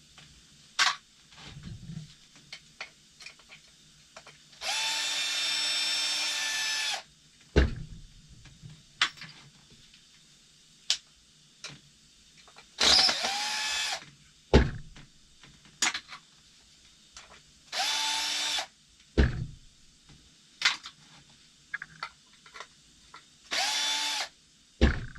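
Power drill backing out screws in four short runs of one to two seconds each, each a steady whine, with sharp clicks and knocks of handling in between.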